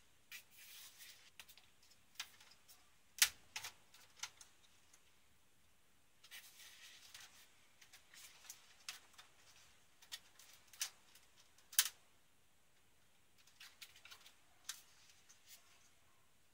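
Plastic clicks, snaps and scraping as the plastic front panel of a Sony SLV-60HFBR VCR is worked loose from its chassis clips by hand. Sharp snaps stand out about three seconds in and again near twelve seconds, between softer rustling and scattered ticks.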